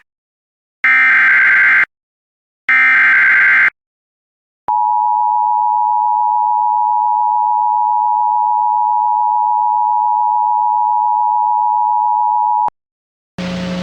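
Emergency Alert System SAME header: two harsh digital data bursts, each about a second long with short gaps, ending the three-times-repeated header. After a brief silence comes the EAS attention signal, a steady two-tone beep held for about eight seconds.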